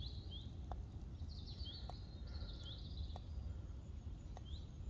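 Small birds chirping in short, high calls repeated several times, over a low steady background rumble, with a faint tick about once a second.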